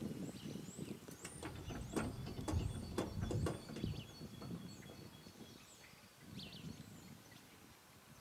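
Small birds chirping with short gliding calls over uneven low rumbling, with a run of knocks about one to three and a half seconds in.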